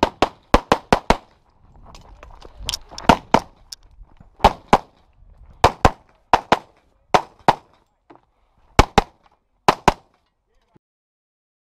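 Pistol fired rapidly in a practical shooting stage: a fast string of about five shots, then shots mostly in quick pairs a quarter second apart, spaced by short pauses, ending about ten seconds in.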